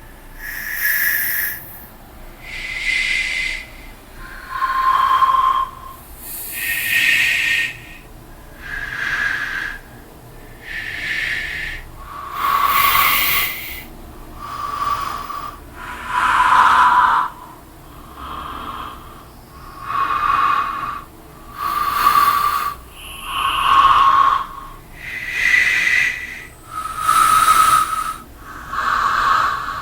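Horror sound effect of slow, raspy breathing: about fifteen hissing breaths, one every two seconds or so, each changing slightly in pitch.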